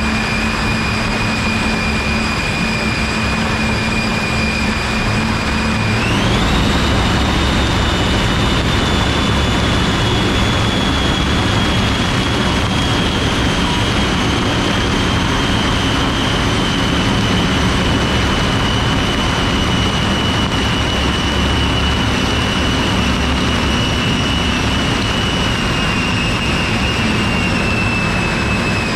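Homemade wind machine of electric ducted fans running at high speed: a high, steady whine over loud rushing air, with the nylon jacket flapping in the blast. About six seconds in the whine jumps up in pitch as the fans speed up, then slowly sinks back by the end.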